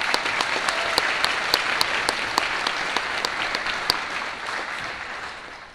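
Audience applauding, with a few sharp single claps standing out above it; the applause dies down near the end.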